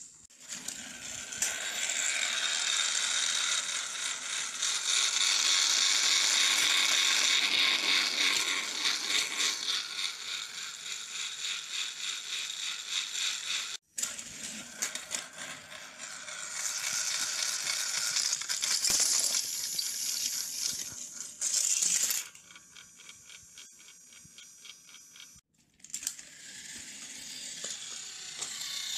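Battery-powered plastic toy trains running on plastic track, their small motors and gears whirring with a dense, fast rattling clatter. The sound breaks off sharply twice.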